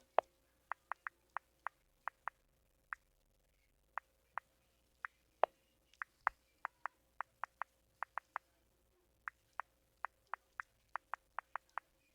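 Smartphone on-screen keyboard clicks as a message is typed: short sharp taps in irregular runs of about three a second, with brief pauses, over a faint steady hum.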